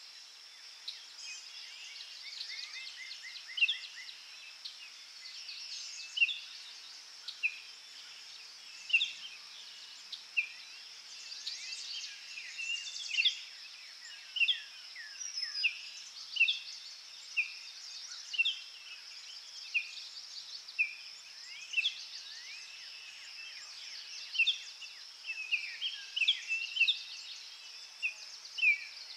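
Forest birds calling, many short sharp chirps and falling whistled notes coming one after another, over a steady high-pitched insect drone.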